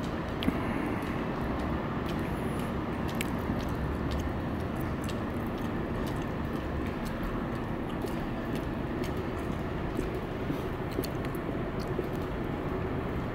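Steady urban background rumble with a faint low hum running through it, and scattered faint ticks.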